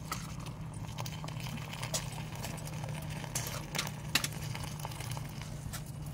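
Scattered sharp clicks and crackles from a tiny steel pan of onions and tomatoes cooking over a small fire, with the sharpest click about four seconds in, over a steady low hum.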